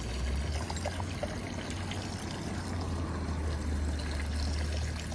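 Water running and trickling steadily, with a steady low hum underneath.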